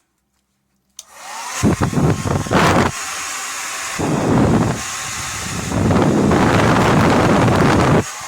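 A Revlon 1875-watt infrared ionic hair dryer is switched on about a second in. Its motor spins up with a rising whine and then runs steadily, blowing air. Three times, a long loud rumble of its airflow hits the microphone, and the sound drops back near the end.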